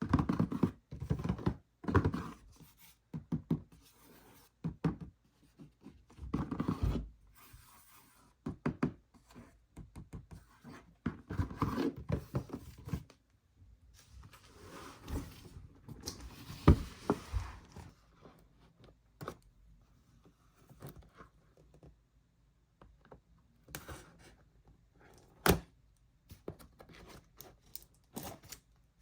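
A toy box and its packaging being handled and opened by hand: irregular knocks and thunks on cardboard, rustling and tearing, and a few sharp clicks, with stretches of quiet between them.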